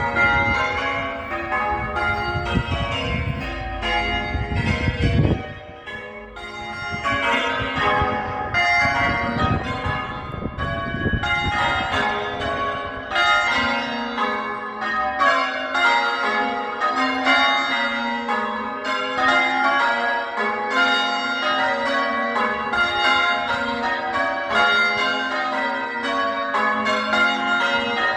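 Church bells in a tower being change-rung, the bells struck one after another in a steady, continuous sequence of overlapping ringing tones. A low rumble lies under the first dozen seconds.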